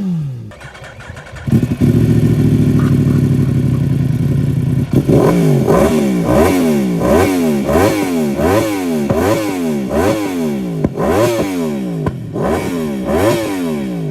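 Sport-bike inline-four engine held at a steady high rev, then blipped repeatedly from about five seconds in, about one and a half revs a second, each rising sharply and falling back.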